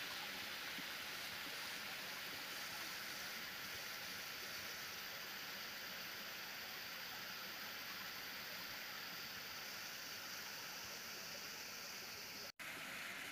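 Steady rush of flowing water, even and unbroken, dropping out for an instant near the end.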